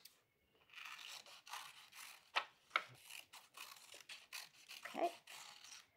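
Scissors snipping through paper, cutting out a circle: faint, scratchy cuts with a few sharper clicks, along with paper rustling as the sheet is turned. It starts just under a second in.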